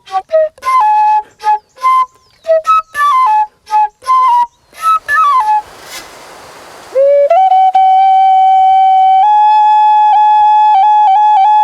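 Solo flute playing. It opens with a run of short separate notes with gaps between them and a brief airy hiss. About seven seconds in comes a long held note that steps up once and breaks into quick ornamental flutters near the end.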